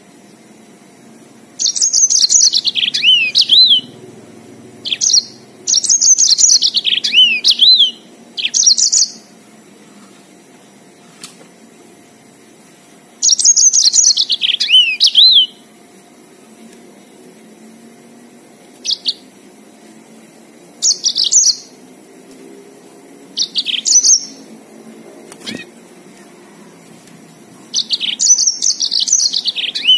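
Yellow-fronted canary singing: bursts of rapid, high warbling phrases of two to three seconds each, with pauses and a few shorter snatches between them.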